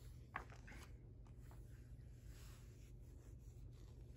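Faint rustle of a picture book's paper page being turned, with a sharp tick about half a second in.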